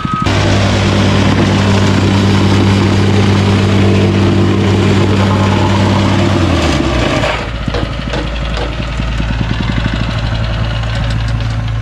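An engine running steadily at high speed, then slowing and dropping in pitch about seven seconds in, and running on at a lower pitch.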